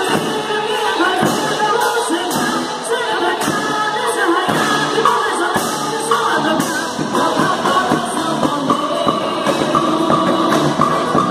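A quadrilha junina song: singing over full band backing, with a steady beat of drum strikes about once a second.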